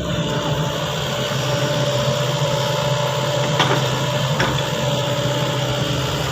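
Sany excavator's diesel engine running steadily, with two short knocks or clanks about a second apart near the middle.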